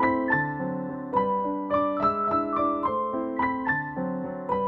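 Background piano music: a calm melody of struck notes that ring on over held lower notes, a new note about every third of a second.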